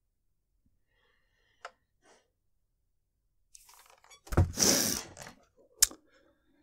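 A man's long, heavy sigh into a close microphone about four seconds in, after a stretch of near silence, with a faint click before it and a sharp click just after it.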